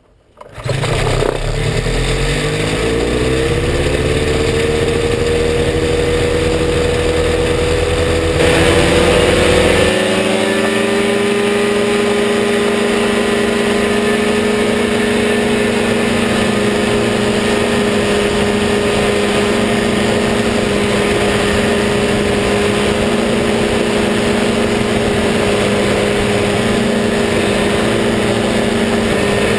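Kawasaki engine and pusher propeller of an ultralight trike starting up about half a second in, rising in pitch over the next few seconds. After about ten seconds it settles into a steady, even drone at take-off power.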